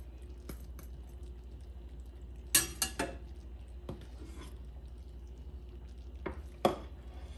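Metal slotted spatula clattering against a steel wok and then set down on a steel plate, with a loud cluster of clanks about two and a half seconds in. Two more sharp knocks near the end, over a low steady hum.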